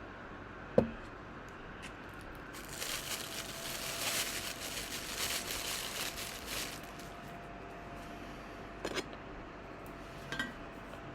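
Unboxing handling of packaging and an insulated water bottle: a sharp click about a second in, then several seconds of crinkling, and two light clinks near the end.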